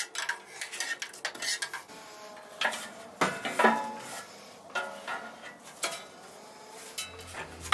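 Metal cookware and utensils clinking and scraping, in a string of sharp clinks, a couple of which ring briefly about halfway through.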